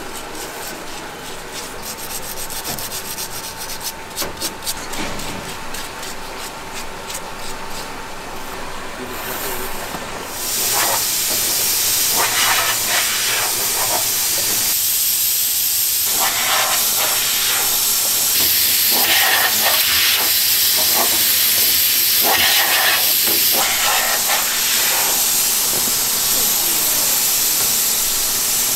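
Fast scratchy rubbing and light clatter of unfired clay pots being handled. About ten seconds in, a loud steady hiss starts suddenly and continues, with intermittent scraping and knocking of the pots over it.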